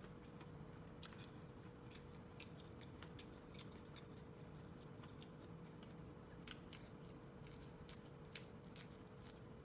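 Faint, scattered clicks of corn kernels being bitten off the cob and chewed, with a few sharper crunches past the middle.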